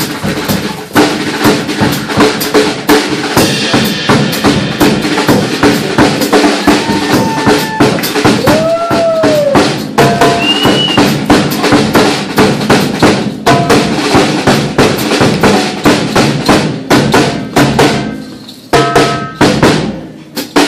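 Live Middle Eastern drum solo for belly dance: a drum kit with bass drum and snare plays a dense, driving rhythm alongside hand drums. A few brief high swooping tones sound about halfway through, and the drumming thins out near the end before sharp hits resume.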